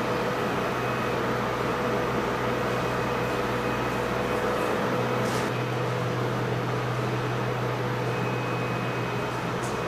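Steady electric hum of a JR EF65 electric locomotive standing at the head of a container freight train, with no strokes or changes.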